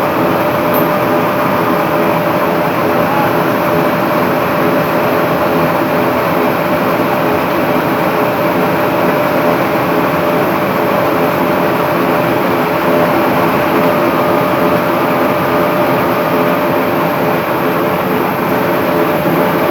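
Slitting machine running steadily at a constant pitch, a dense even mechanical noise with a steady hum.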